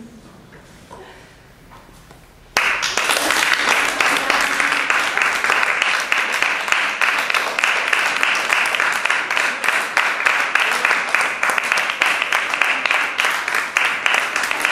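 Quiet room for about two and a half seconds, then an audience starts applauding all at once and keeps clapping steadily.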